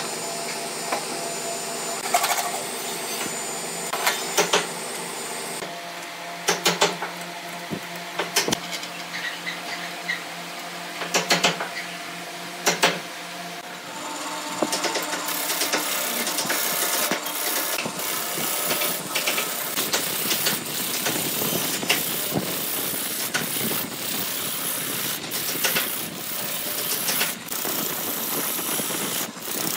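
Wood lathe running with a steady hum while a turning tool cuts the spinning segmented wood blank, in separate short cuts at first and then more continuously from about halfway, a dry scraping hiss with sharp clicks.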